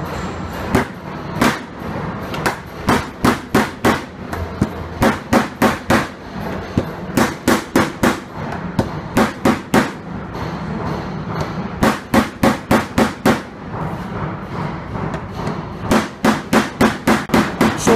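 Rubber mallet striking a flat steel spatula held against a car fender, in quick runs of sharp taps about three to four a second with short pauses between runs: tapping down the raised tension around a dent in paintless dent repair.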